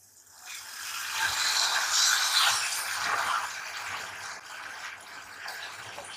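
A silicone spatula stirring and scraping thick mayonnaise-and-herb sauce around a non-stick saucepan, a continuous scraping and swishing that is louder over the first three seconds and then eases off.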